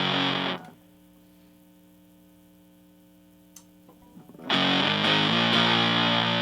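Electric guitar played through a Smolder Fuzz pedal, with its MOSFET clipping diodes switched in, into a Fender Blues Junior amp: fuzzed chords cut off about half a second in. For about four seconds only a steady mains hum from the rig is heard, with a small click in the middle. Then the fuzzed guitar comes back in near the end.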